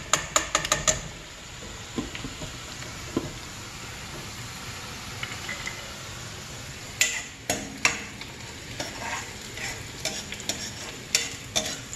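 Sliced onions frying in oil in a kadhai with a steady sizzle, while a metal spatula stirs and scrapes the pan. There is a quick run of sharp clicks and scrapes right at the start, and more scattered knocks in the second half.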